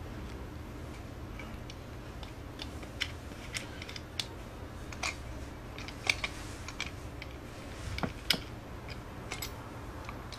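Scattered, irregular clicks and taps of the hard-plastic handles and steel coil spring of an Everest adjustable hand grip trainer being handled. They start a couple of seconds in and are loudest about eight seconds in.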